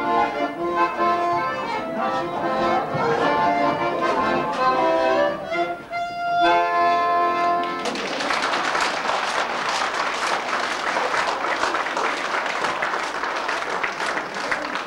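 Accordion playing a folk dance tune that ends on a held chord about eight seconds in, followed at once by the audience applauding.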